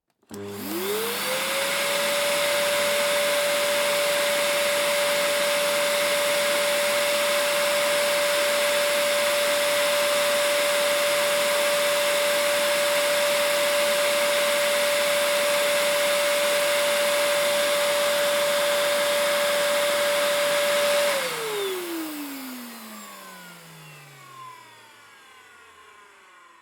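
Vacuum cleaner switched on, its motor whine rising to full speed within a couple of seconds over a steady rush of air. It runs steadily, then is switched off about 21 seconds in, the whine sliding down in pitch and fading as the motor spins down.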